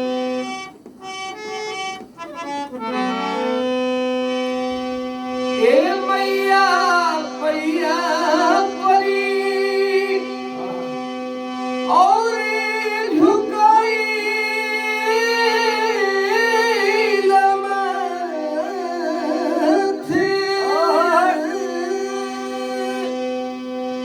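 Harmonium playing a steady drone and held chords, joined about five or six seconds in by a man's voice singing long, sliding, wavering notes without clear words: the alaap that opens a Bhojpuri devotional bhajan to the Mother goddess.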